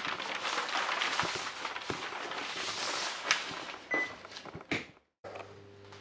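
Large printed paper sheets rustling and crackling as they are handled, with a few sharper ticks and snaps. The sound stops abruptly about five seconds in and gives way to a quiet room with a faint steady hum.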